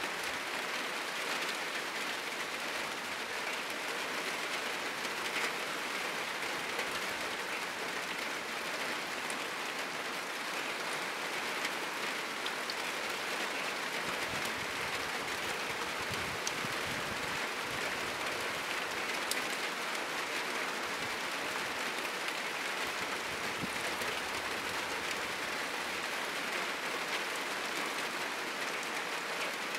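Heavy rain falling steadily on a roof, an even hiss of drops. A faint low rumble rises under it for several seconds around the middle.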